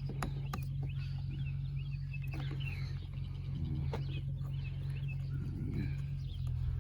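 Birds chirping in short calls over a steady low hum, with scattered small clicks of chainsaw parts and tools being handled.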